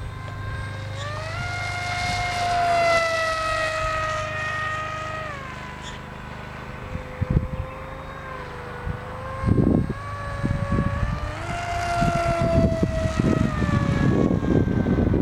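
Electric motor and propeller of an AXN Floater Jet RC foam plane in flight: a steady whine that climbs in pitch twice, about a second in and again past eleven seconds, each time sinking slowly back down. Low gusts of wind rumble on the microphone in the second half.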